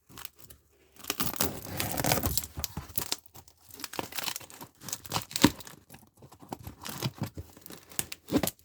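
Letter opener sawing and tearing through the paper and tape of a mailed package, with crinkling packaging and irregular scraping strokes and clicks. The blade is not slicing cleanly and is being worked back and forth like a small saw.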